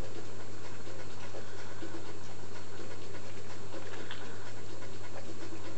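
Domestic cat chewing and smacking chunks of wet cat food from a plastic bowl: a run of small irregular wet clicks, over a steady low hum.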